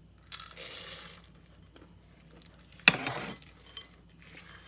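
Peanuts being poured into a bowl of melted chocolate fudge mixture, a soft rattling rush for about a second, followed about three seconds in by one sharp clink of kitchenware.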